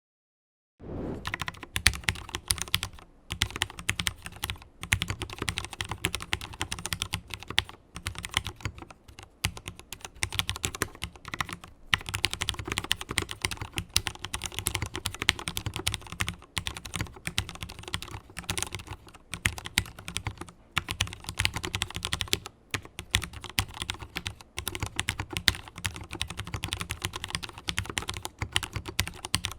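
Mstone mechanical keyboard with fully lubricated Cherry MX Black linear switches being typed on quickly, keystrokes following one another densely with a few short pauses. The typing starts about a second in.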